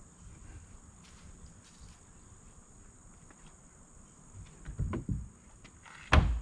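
Steady chirring of crickets and insects. About five seconds in come a few low handling bumps, then a single loud thump as the kayak's plastic hull is set onto the pickup's tailgate.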